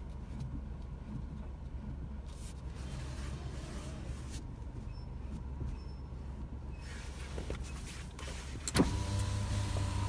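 Cabin of a 2020 Ford Ka SE Plus: a steady low rumble, then a sharp knock near the end followed by a steady whine. This is the front-end noise that Ford's mechanics traced to the brake discs touching the thin metal dust shield behind them.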